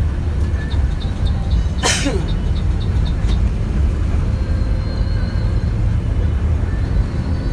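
Steady low rumble of a Mercedes-Benz OH 1526 diesel coach and its tyres while driving, heard from inside the cabin. About two seconds in there is a short, sharp hiss with a brief falling tone. Faint regular ticks, about three or four a second, run through the first three seconds.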